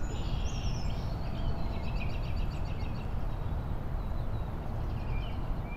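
Birds chirping outdoors, with a quick run of repeated high notes in the first half and a few more chirps near the end, over a steady low background rumble.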